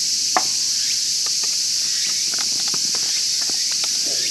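Steady high-pitched drone of insects, with a sharp knock about half a second in and a few lighter clicks and taps of things being handled on a camp table.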